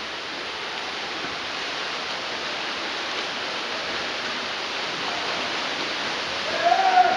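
Steady wash of splashing from water polo players swimming hard in a pool. A brief shout rings out near the end.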